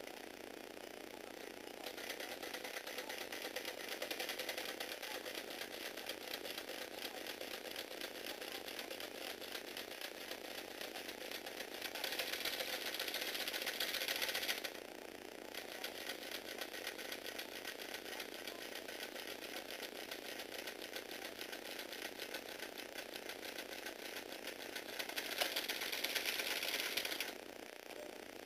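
Small electric motor driving a Lego Technic robot, its plastic gears rattling and buzzing steadily as it runs. The rattle gets louder twice for a couple of seconds, about halfway through and near the end.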